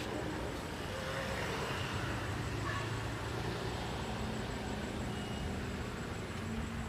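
Steady low mechanical rumble of a running vehicle, with a faint hum coming in about four seconds in.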